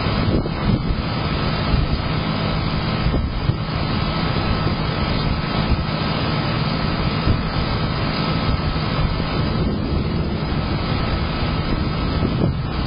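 Thunder rumbling low and steady, heard through a Blink security camera's small microphone.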